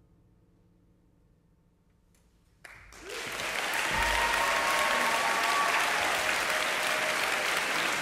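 The band's final notes ring out faintly and die away, then audience applause breaks out about two and a half seconds in, swelling to full within a second and holding steady, with a few cheers over it.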